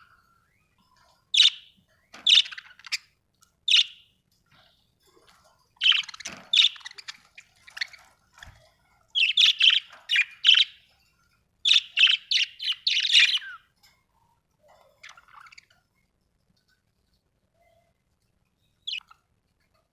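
Budgerigars chirping: short, high, sharp chirps in quick clusters separated by brief pauses, thinning out to a lull with a single faint chirp near the end.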